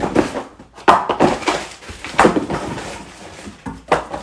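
Vacuum cleaner parts being handled and unpacked: a series of irregular knocks and clatters with short rustles in between.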